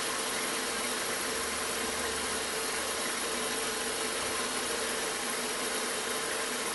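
Milling machine spindle running steadily: an even mechanical hiss with a steady whine, the cutter turning while the table is moved to a new offset and not yet cutting.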